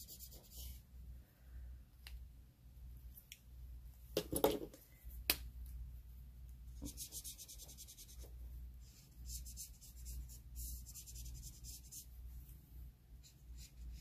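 Faint scratchy strokes of an alcohol-ink marker drawn across glossy photo paper, coming in several short spells, with a couple of brief knocks about four and five seconds in.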